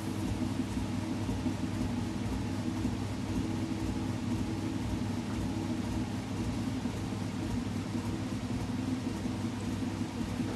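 Potter's wheel motor running steadily with a low, even hum while the wheel head spins.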